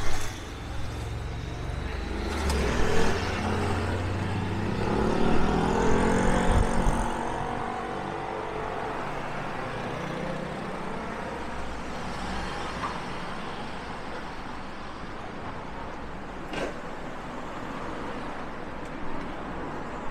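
Road traffic: a motor vehicle passes close by in the first half with a deep rumble, its engine note rising as it accelerates, then a steady hum of traffic.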